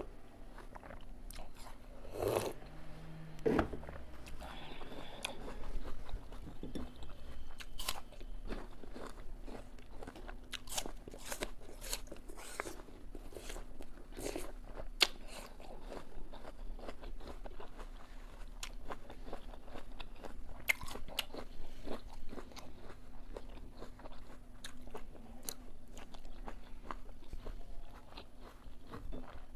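A person biting into and chewing crisp apple close to the microphone: many irregular, sharp crunches. A faint steady hum runs underneath.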